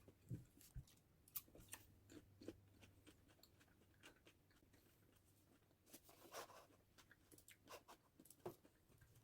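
Near silence with faint scattered small clicks and taps, and a brief soft rustle about six seconds in.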